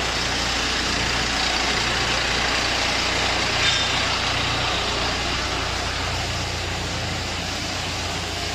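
Diesel engine of a self-loading concrete mixer running steadily under test, a constant mechanical noise with a low hum, with one brief high squeak about three and a half seconds in.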